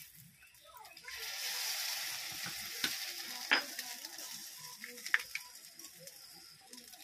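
Egg cracked into hot oil in a steel kadai of frying soya chunks, sizzling from about a second in, with a few sharp clicks over the sizzle.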